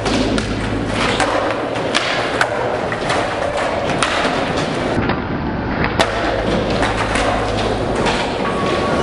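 Skateboards on a hard indoor floor: wheels rolling, with many sharp clacks of tails popping and boards landing during flatground tricks.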